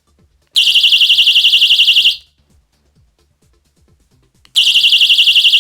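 KOSIN Safe Sound personal alarm keychain sounding twice: a shrill, high-pitched tone pulsing about a dozen times a second. Each burst lasts about a second and a half and cuts off suddenly when the pin is pushed back in.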